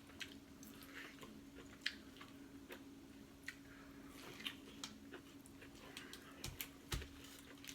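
A person chewing and biting food, with scattered small wet clicks and smacks, over a faint steady hum.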